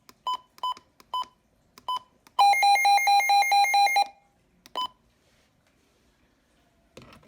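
Midland WR120 weather radio running its siren test: five short beeps, then its alert siren as a loud, fast pulsing tone of about five pulses a second for under two seconds, then one more beep.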